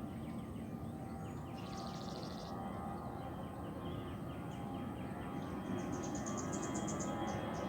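Outdoor ambience of insects and birds over a steady low background rumble: rows of quick repeated chirps throughout, a short buzz about two seconds in, and faster high-pitched insect pulsing from near the end.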